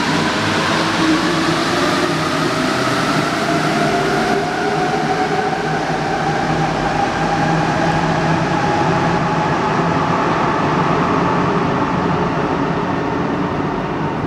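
Alstom NS-16 rubber-tyred metro train accelerating out of an underground station. Its traction motors give a whine that rises steadily in pitch, and the sound eases a little near the end as the train draws away into the tunnel.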